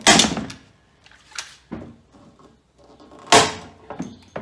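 Hand pop-rivet gun setting blind rivets in an aluminium footplate. There are two loud, sharp snaps of rivet mandrels breaking off, about three seconds apart, with lighter clicks of the tool between them.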